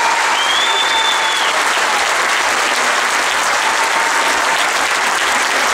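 A large audience applauding steadily. A brief high, steady tone sounds over the clapping about half a second in.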